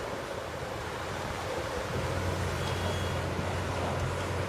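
Caterpillar 6015B mining excavator's Cat C27 diesel engine and hydraulics running, a steady low drone that grows louder about two seconds in as the loaded bucket swings up over the truck.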